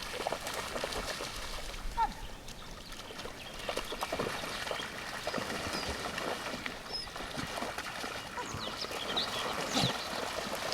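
Lake water splashing and trickling, with scattered small clicks and a few short high chirps.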